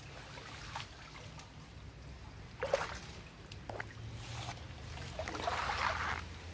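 Muddy water sloshing and splashing around a person wading waist-deep, with a sharp splash a little under three seconds in and a longer bout of splashing near the end.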